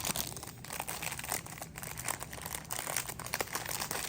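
Close crinkling and rustling of handled packaging, a dense run of small crackles.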